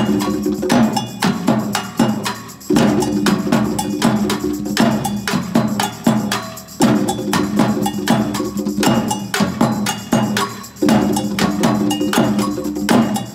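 Improvised percussion ensemble playing a steady, quick pattern of sharp struck hand percussion over hand drums. About every four seconds a group of voices holds a low note for about two seconds.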